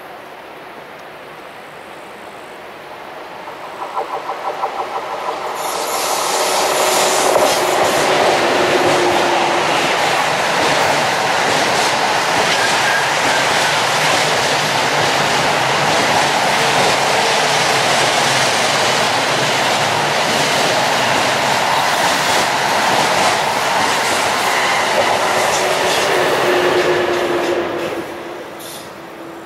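An ÖBB class 1116 Taurus electric locomotive hauls a rolling-highway freight train of lorries on low-floor wagons past. A quick run of wheel clicks over the rail joints comes about four seconds in, then a loud, steady rolling noise of the wagons for about twenty seconds, dropping off near the end as the last wagon passes.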